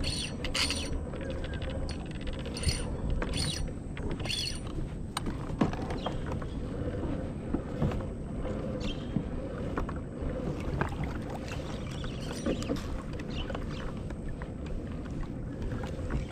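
Water and wind noise around a fishing kayak under way, with a faint steady hum and scattered sharp clicks and taps from the hull and fishing gear, most of them in the first few seconds.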